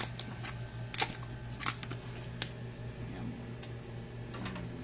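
Handling noise as rice is tipped from a foil tray onto a plastic sheet: crinkling and rustling, with a few sharp clicks, the loudest about a second in and again shortly after. A steady low hum runs underneath.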